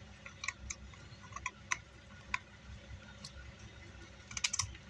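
Scattered light clicks and taps from handling a car amplifier's parts and chassis while it is being taken apart, with a quick cluster of them near the end.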